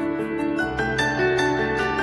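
Instrumental background music: gentle plucked and keyboard melody over a held bass note.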